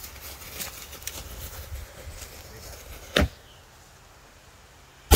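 Rustling and crunching of feet running off through dry leaves while a lit firework smokes inside a jack-o'-lantern, a single sharp crack about three seconds in, then a quiet moment before a large firework explodes with a loud boom right at the end.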